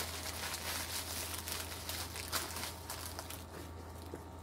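Plastic bubble-wrap packaging crinkling as it is handled, a dense run of crackles that thins out after about three seconds.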